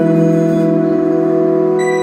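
Live band music: an instrumental passage with a sustained chord held steady, a higher note coming in near the end.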